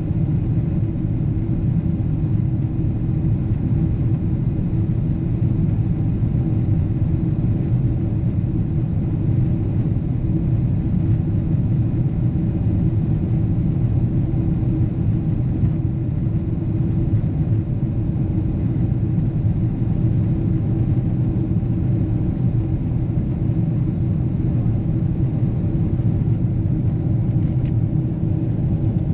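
Steady low drone of a Boeing 777's engines and airflow heard inside the cabin in flight, unchanging throughout, with a steady hum riding on the rumble.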